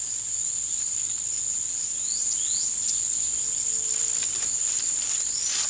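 Steady high-pitched insect drone, with a few short rising chirps over it about two seconds in and again near the end.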